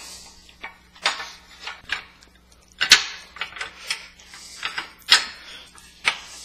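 Scattered metal clicks and clinks as a steel pin is jiggled into grooved holes to line up in a snow blade's steel push-channel bracket. The sharpest knocks come about three and five seconds in.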